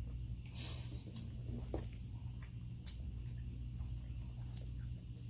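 Close-miked eating sounds: a bite of fried chicken egg roll being chewed, with scattered small wet clicks and smacks. A steady low hum runs underneath.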